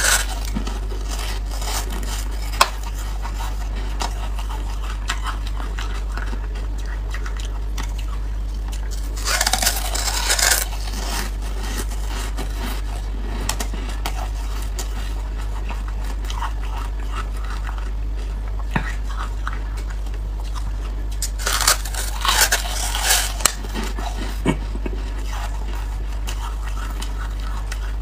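Teeth biting into a thin disc of frozen ice, in two loud bursts of crunching and cracking about twelve seconds apart, with faint crackling chews between them. A steady low hum runs underneath.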